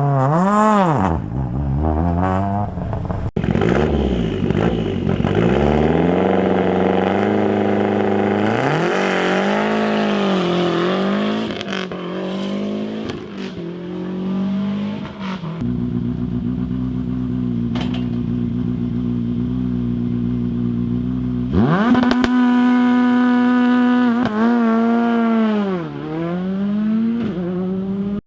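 Rally car engine at a start line, revved up and down in repeated blips, then settling to a steady run. About 22 seconds in it is revved sharply and held at high revs for a couple of seconds, then the revs drop and climb again.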